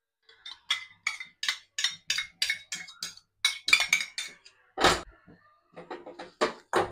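Steel spoon stirring thick halwa in a stainless steel pan, clinking and scraping against the metal about three or four times a second, with one louder knock about five seconds in followed by a short pause.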